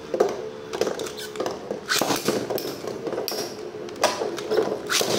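Metal Storm Pegasus Beyblade tops spinning and scraping across a plastic stadium floor with a steady whir, broken by several sharp clacks as they strike each other and the wall.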